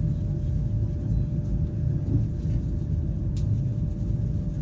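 Steady low rumble of a CR300AF Fuxing high-speed train under way, heard inside the passenger cabin, with a faint steady hum. A light click comes about three seconds in.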